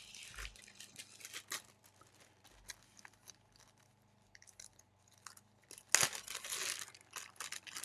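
Elastic cord ends being melted with a flame to stop fraying: crackling and small clicks, with a short hiss at the start and a louder hiss of about a second roughly six seconds in.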